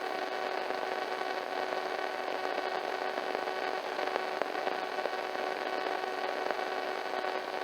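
Steady static hiss with a low hum underneath, unchanging throughout: dead air on the mock alert broadcast.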